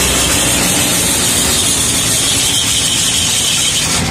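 Ice-shaving machine grinding a block of ice into shaved ice for a gola, a loud, steady, rasping hiss that stops about four seconds in.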